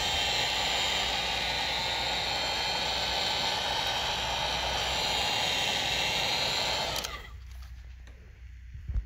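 Heat gun blowing hot air steadily, then switched off about seven seconds in. It is heating wrap vinyl over a rivet head so the film can be sunk down around it.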